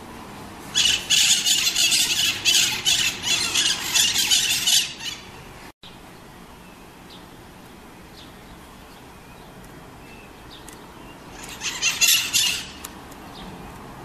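Green parakeets (maritacas) screeching, a loud run of rapid shrill calls lasting about four seconds, then a shorter burst of screeches near the end.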